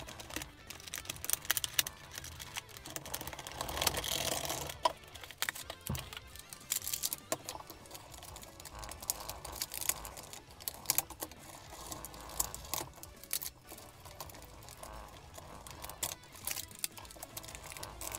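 Hobby knife cutting and prying at a stiff clear plastic blister pack: an irregular run of small clicks, snaps and crinkles of the plastic, with a louder stretch of crackling about four seconds in.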